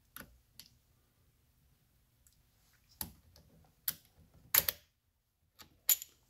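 Sharp metallic clicks from an OmniLock ratcheting wrench working an acorn nut on a stainless bolt clamped in a vise: about seven clicks, irregularly spaced, the loudest a double click about four and a half seconds in.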